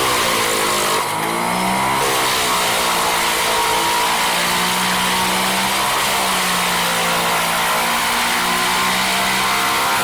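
A machine's engine running under load, its pitch dipping and rising in the first couple of seconds, then holding fairly steady.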